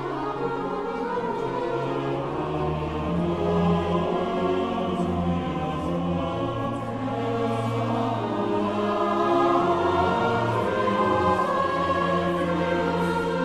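Church pipe organ playing the closing voluntary of the service: sustained chords, with deep held bass notes coming in about two seconds in.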